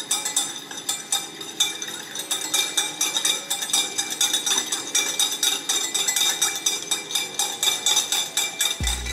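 Metal balloon whisk beating against the sides of a glass measuring cup, a quick, rhythmic clinking of several strokes a second, as balsamic vinegar and honey are whisked while olive oil is drizzled in to emulsify the vinaigrette.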